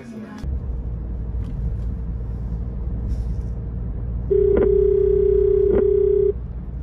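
Low, steady road rumble inside a moving BMW's cabin. About four seconds in, one long ringback tone of about two seconds sounds from an outgoing phone call that has not yet been answered.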